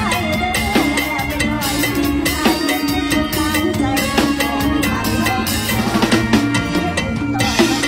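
Mor lam band music with the drum kit to the fore, kick, snare and rim hits over bass and held melody notes.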